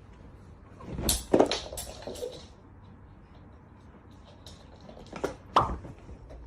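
Sharp knocks and clatter, like objects or a cupboard door being knocked about: a quick cluster about a second in, then two more knocks near the end.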